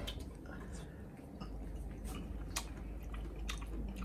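A person chewing a mouthful of raw, slippery organ meat: wet mouth sounds with scattered sharp, irregular clicks.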